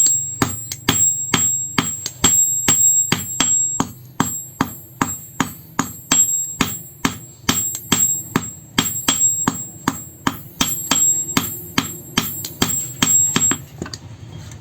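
Hand hammer beating steel from an old vehicle spring on an anvil at a steady pace, about two blows a second, each blow ringing. The hammering stops about a second before the end. A low steady hum runs underneath.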